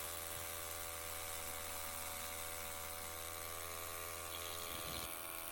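Power drill motor running at a steady, unchanging speed, with a steady whine, while it bores the floor hole for a dome door stop's anchor.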